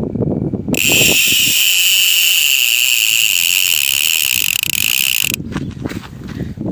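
Drag of an Abu Cardinal 6 spinning reel buzzing as a fish pulls line off the spool: a steady, high-pitched ratcheting whine that starts just under a second in, lasts about four and a half seconds and stops suddenly. The run is the sign of a fish taking the bait. Rustling and handling noise surround it.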